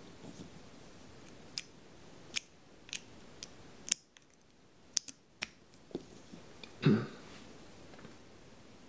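Small sharp plastic clicks and taps as a USB thumb drive is pulled from and pushed into a USB OTG adapter: about a dozen separate clicks, then one louder, duller knock as the stick and adapter are set down.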